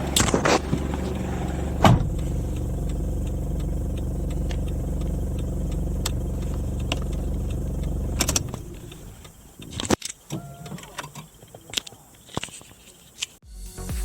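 Toyota Land Cruiser Prado's 1KZ-TE 3.0-litre four-cylinder turbodiesel idling steadily. It is switched off about eight seconds in and runs down, then come a few scattered clicks and knocks.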